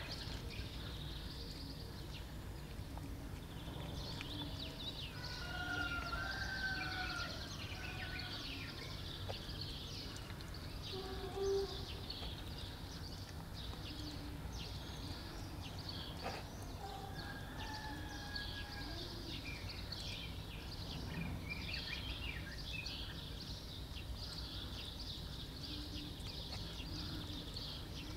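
A domestic cat eating wet food, a steady run of small wet chewing and smacking clicks, with a few faint bird chirps over a low outdoor rumble.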